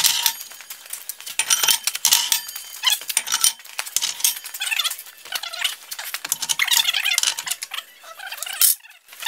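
Wavy steel disc blades and spool spacers being slid down and stacked onto a vertical gang shaft, clinking, scraping and rattling metal on metal in an irregular run of clanks.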